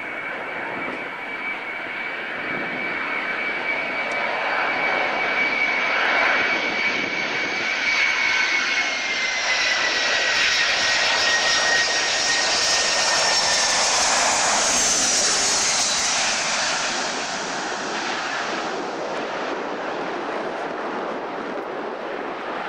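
Boeing 737 Classic's CFM56 turbofans on landing approach: a steady high whine over jet rush. The whine slides down in pitch as the jet passes. The sound is loudest about halfway through, then fades as it settles onto the runway.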